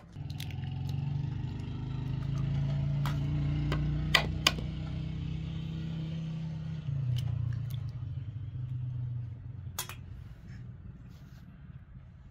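A low, steady motor hum that fades after about nine seconds, with a few sharp taps of eggs being cracked against a steel bowl.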